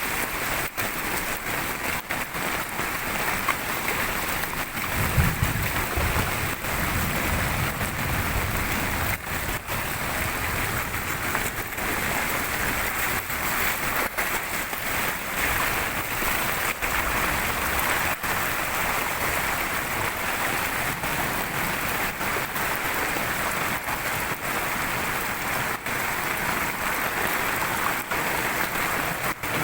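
A waterfall in full spate under heavy rain, a steady rush of falling water and rain. A low rumble rises briefly about five seconds in and lasts a few seconds.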